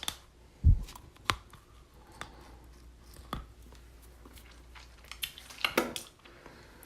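Teeth being flossed and spat: scattered short clicks and snaps of dental floss at the teeth, a low thump just under a second in, and a cluster of quick noisy bursts about five to six seconds in.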